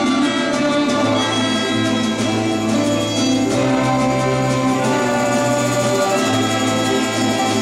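Orchestral music with bowed strings and sustained bass notes.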